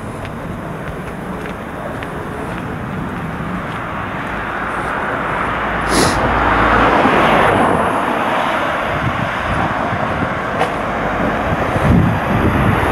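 Street traffic noise, with a car passing close by: its noise swells to a peak about seven seconds in and then fades. A sharp click comes just before the peak.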